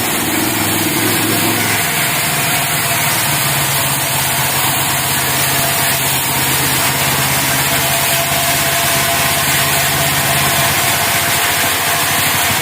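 Portable band sawmill running steadily, its small engine driving the band saw. A low engine hum shifts pitch about two seconds in and drops out near the end, under a constant rush of noise.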